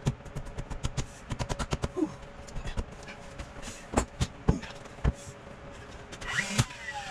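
Knocking and clicking from hand work on the wooden rough framing of a window opening: a quick irregular run of clicks and knocks, then a few single heavier knocks, over a steady faint hum. Near the end a louder rushing sound with falling tones sets in.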